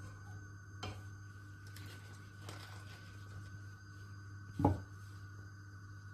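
Light kitchen handling sounds over a steady low hum: a few faint clicks, then one short, louder knock about four and a half seconds in, as a utensil is set down on the stone counter.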